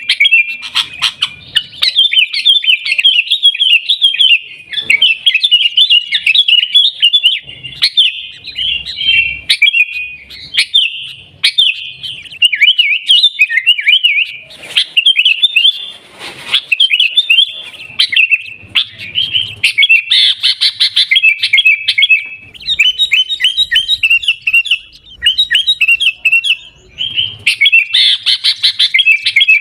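Sooty-headed bulbul (kutilang) singing a rapid, continuous run of bright chirps and warbled notes, with only brief pauses.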